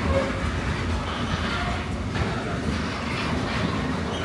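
Freight train passing, its wagons rolling by on the rails with a steady rumble.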